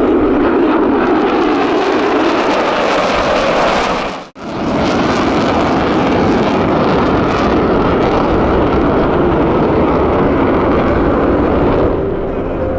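Loud, steady jet noise of a U.S. Navy F-35C Lightning II with its Pratt & Whitney F135 engine, passing overhead. The sound drops out suddenly for a moment about four seconds in, then returns and eases slightly near the end.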